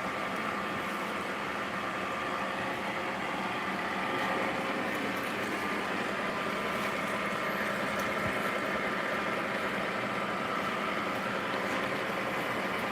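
A machine running steadily: an even mechanical hum with a faint steady whine, unchanging throughout.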